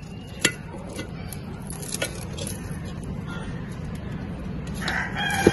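Metal tongs clinking and scraping against a clay pot and the chicken pieces inside as they are turned: a few sharp clicks spread apart, the loudest near the end, over a steady low background.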